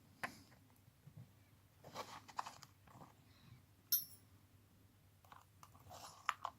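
Hand tools being handled and slotted back into a tool kit case: scattered faint rustles and light clicks, with a sharp clink about four seconds in and two more clicks near the end.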